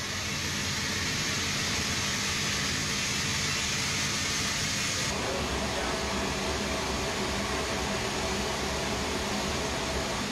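Steady machine hum and hiss inside a military cargo aircraft's hold. The sound changes abruptly about five seconds in, where the picture cuts.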